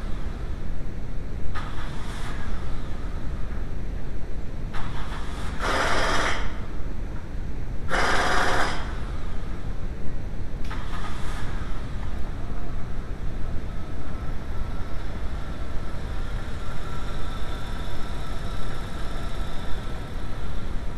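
VW Mk2 Golf/Jetta engine running steadily, with two brief loud bursts of noise about six and eight seconds in.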